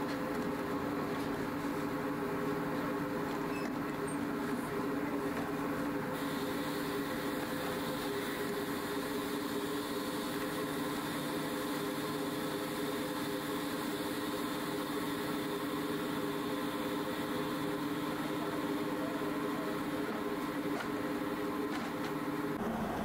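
Factory machinery running with a steady, even hum made of several held low tones; a higher hiss joins about six seconds in.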